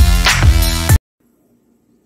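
Music with a heavy bass beat that cuts off suddenly about halfway through, leaving faint room tone.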